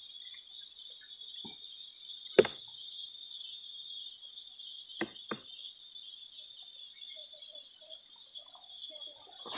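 Steady high-pitched drone of forest insects, several pitches held together without a break. A sharp click cuts through about two and a half seconds in, and two quick fainter clicks come around the middle.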